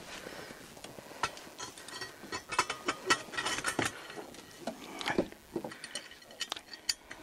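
Irregular metal clicks and clinks of the log sleigh's hardware being handled, in clusters with short pauses.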